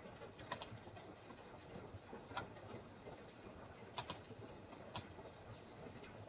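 Sharp computer clicks over quiet room tone: about six in all, two of them in quick pairs.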